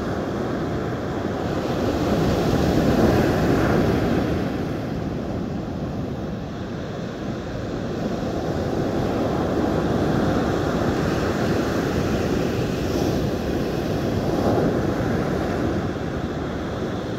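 Surf breaking and washing up a sandy beach, with wind buffeting the microphone. The noise surges louder about three seconds in and again through the second half.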